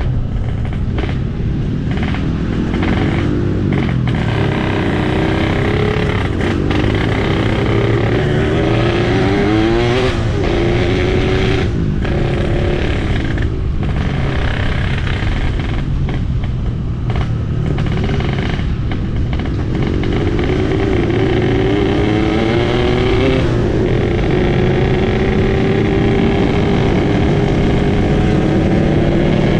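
Yamaha RX-King two-stroke single-cylinder motorcycle ridden hard, its engine tuned for the raspy "ngorok" note. It revs up again and again through the gears, with a short drop at each shift, then holds one long, slowly rising pull near the end.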